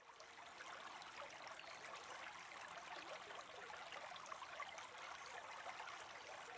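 Faint, steady sound of running water, like a stream.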